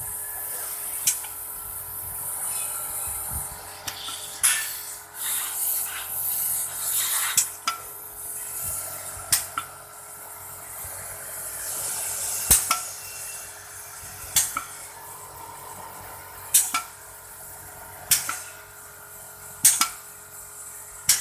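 Pneumatic drill jig and fixture mechanism working: a series of sharp metal clacks, about every one and a half seconds in the second half, with bursts of air hiss between them in the first half.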